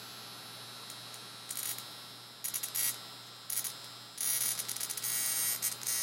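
Violet wand with a curved glass electrode buzzing steadily, with bursts of sharp crackling as it sparks against skin: a few short ones from about a second and a half in and a longer run from about four seconds in.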